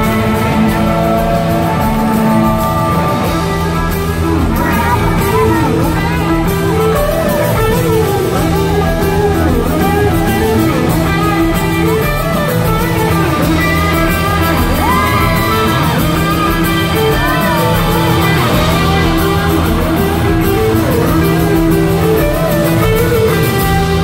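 Live rock band with an electric guitar solo: a semi-hollow electric guitar plays bending, sliding lead lines over steady band chords and bass. The solo lines come in about four seconds in.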